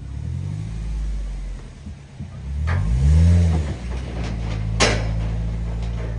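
Engine of a small light flatbed truck pulling away and driving off, revving up and back down twice, the second rev the loudest, then settling to a steady run. A single sharp knock sounds about five seconds in.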